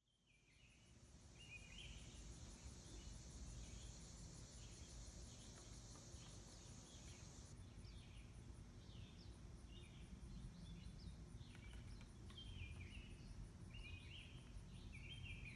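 Faint outdoor insect ambience: a steady high buzz with a fast, even ticking, and scattered short chirps. The buzz drops away about halfway through.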